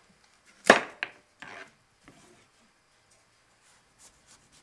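Chef's knife cutting through the end of a peeled butternut squash and knocking down onto the cutting board: one sharp knock about a second in, a lighter knock just after, then short scraping sounds of the blade.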